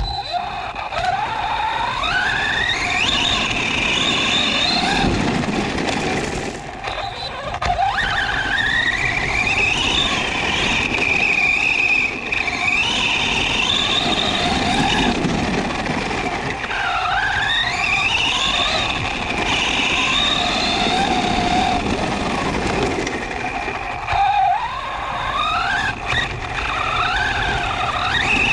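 Kyosho Mad Van RC monster truck's 2S brushless motor whining as the truck drives, its pitch rising sharply about four times as it accelerates, over the rushing noise of its tyres on asphalt and gravel.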